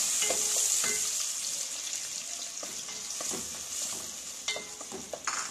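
Chopped onions sizzling in hot oil in a steel kadai, just added and being stirred, with a spoon scraping and clicking against the pan. The sizzle is loudest at first and dies down gradually.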